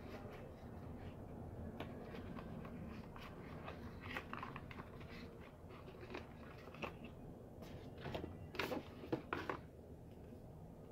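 Packaging and small parts being handled: scattered short clicks and crinkles over a steady low hum, with a burst of louder crackles about eight to nine and a half seconds in.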